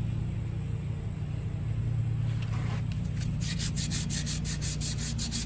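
Fine-grit sandpaper rubbed by hand over a wheel rim's bead seat in rapid back-and-forth strokes, about five a second, starting about halfway through, over a steady low hum. The sanding smooths rough rust and dirt spots so the tire bead can seal.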